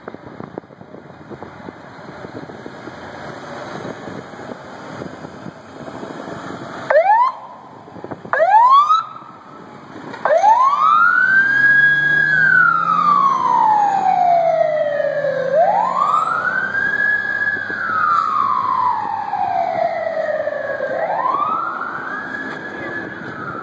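Beverly Hills fire engine pulling out. First its engine is running; then the siren gives two short, loud whoops about seven and eight and a half seconds in. After that it goes into a wail, each cycle rising quickly and then falling slowly, about three times.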